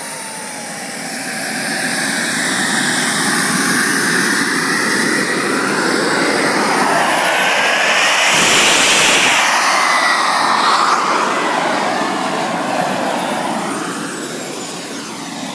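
Small model turbine engine of a radio-controlled jet running on the ground: a loud rushing jet hiss with a thin whine that slides down and then up in pitch, peaking about eight to nine seconds in.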